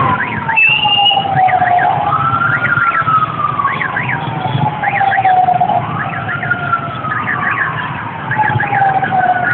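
A wailing siren that climbs quickly and then sinks slowly, about once every four seconds. Short high chirps come in quick twos and threes over it, against the steady hiss of heavy rain.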